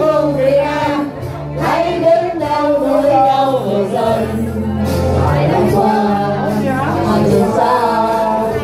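Several men and women singing together through handheld microphones over amplified music with a steady bass line.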